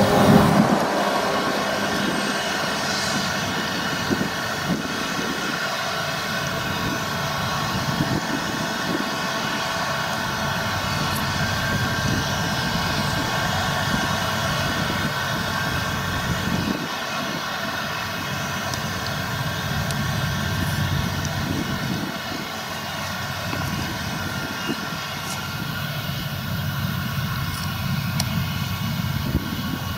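Claas Lexion combine harvester running steadily under load while threshing rapeseed: a continuous drone of its diesel engine and threshing machinery, with several steady tones held throughout.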